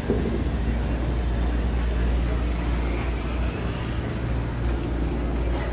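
Steady low drone of a riverboat's onboard machinery running while the boat lies docked, with an even background hiss on deck.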